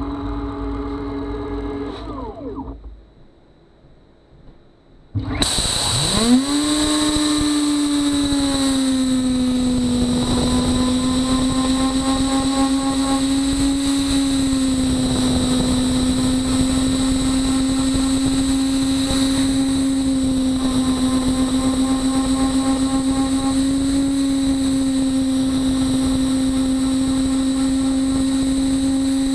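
Beaver HDZero CNC router's spindle winding down to a stop about two seconds in, then after a short lull spinning up again, its pitch sweeping up over a second or so, and running on as a steady high whine.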